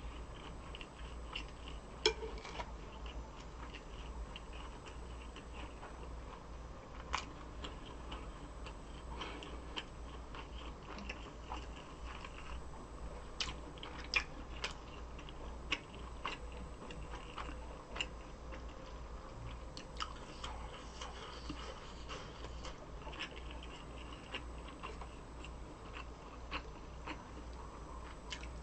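Close-up chewing of chewy food with irregular sharp mouth clicks and smacks, the loudest about two seconds in.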